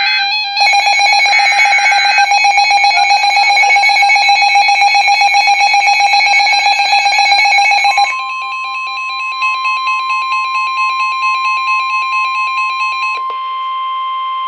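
Emergency weather alert tones for a tornado warning. A rapidly pulsing electronic alarm beep comes first. About eight seconds in, a steady single-pitched warning tone, the NOAA Weather Radio alert tone, joins it. The beeping stops a little over a second before the end, while the steady tone holds.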